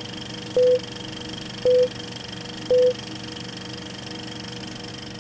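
Film countdown leader beeps: three short, even tones about a second apart, which then stop. A steady hum and hiss runs beneath them.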